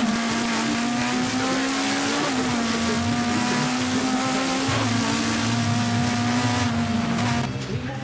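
Race-car engine sound at high, steady revs, its pitch creeping up then dropping sharply about two seconds in, as at a gear change, then holding until it cuts off abruptly near the end. The car in view has no engine, so this is a dubbed-in or played-back engine sound.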